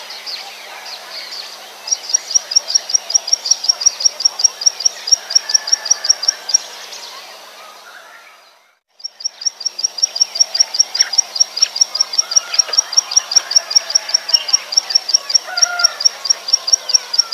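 Plain prinia (ciblek sawah) song: a fast, even run of sharp high notes, about five a second. It fades out around eight seconds in, breaks off to silence for a moment, then starts again.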